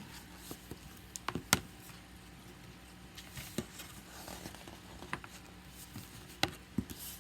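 A few scattered light clicks and taps over a faint steady hum, the sharpest about a second and a half in and again near the end.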